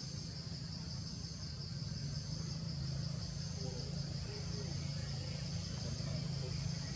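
A steady, high-pitched chorus of insects over a low, steady rumble, both starting suddenly at once.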